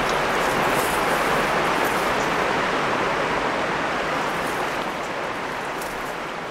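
River water rushing steadily over rocks, slowly fading out over the last couple of seconds.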